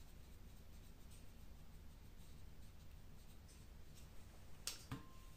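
Near silence: quiet room tone with a low hum, and a couple of faint clicks near the end.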